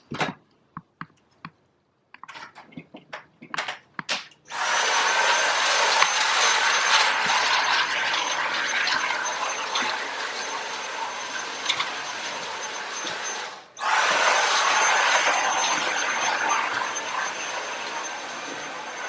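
Plastic clicks and knocks as a vacuum's brush head is changed, then the vacuum cleaner switches on and runs steadily with a high whine, sucking lint and dust out of a water heater's air intake vents. About two-thirds of the way through it cuts out for a moment and starts again at once.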